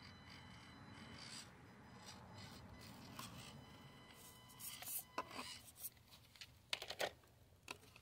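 Axial SCX24 mini crawler inching over rock: a faint steady high whine from its small electric drivetrain, then from about halfway on, sharp clicks, scrapes and clatter of its tires and plastic body against the rock as it slips and is grabbed by hand near the end.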